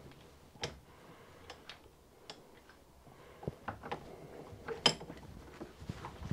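Scattered light metal-on-metal taps and clicks, the sharpest about five seconds in. A pop rivet mandrel is being used as a small punch on a big end bolt held in a steel vise, to work out pieces of broken split pin.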